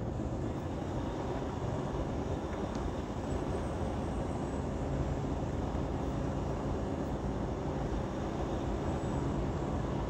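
Semi-truck driving at highway speed: a steady engine hum and road noise.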